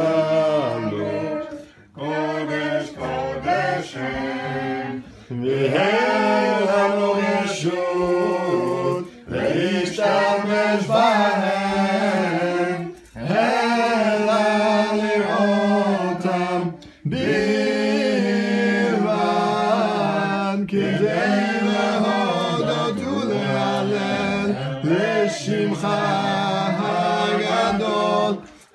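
A group of voices singing a Hanukkah song together without instruments, in long phrases with short breaks for breath.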